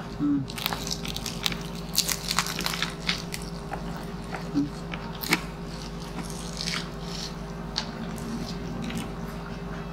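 Crunching and crackling of crispy pata (deep-fried pork leg) skin being pulled apart by hand and bitten, with chewing: a flurry of sharp crunches in the first five seconds or so, then only a few quieter ones.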